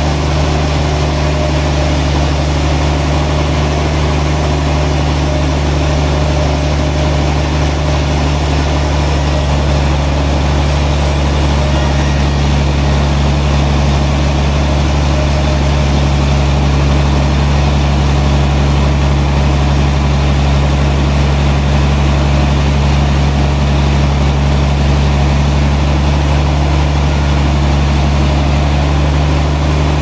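Large band sawmill running steadily as its blade cuts through a big log, a constant loud low hum from the machine under a steady haze of cutting noise.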